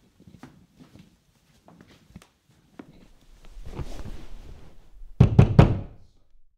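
Faint soft footsteps, then a swelling noise and three loud, heavy knocks in quick succession about five seconds in.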